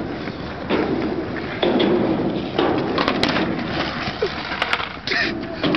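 Skateboard wheels rolling on concrete, with a few sharp clacks from the board as a trick is tried and the board comes away from the rider's feet.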